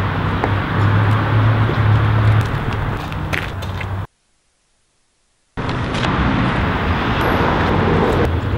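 Loud, steady street noise with a low rumble. About four seconds in it cuts to dead silence for about a second and a half, then the same noise returns.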